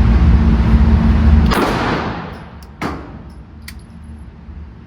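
Pistol shots from a 9mm handgun: a loud low rumble ends in a burst about a second and a half in, then a single sharp crack follows just under three seconds in, with a few faint clicks after.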